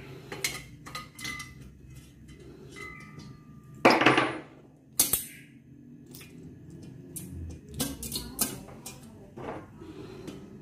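Metal clicks and clinks of a wrench working the bolts of a steel TV wall bracket as they are tightened, with a louder clatter about four seconds in and a sharp clank a second later.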